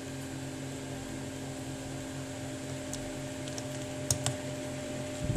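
Small plastic-and-metal clicks of a phone's system board being handled and pressed into its frame, a few faint ones then two sharper clicks about four seconds in, over a steady hum.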